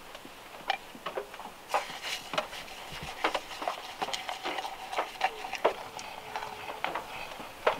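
Irregular taps of raindrops dripping from trees onto the car roof, over a steady faint patter of rain. Mixed in are knocks of a spoon against a ceramic mug as a drink is stirred in it.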